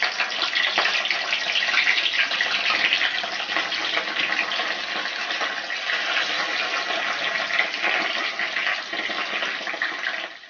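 Curry leaves sizzling and spluttering in hot coconut oil in a wok: a steady crackling hiss full of fine pops.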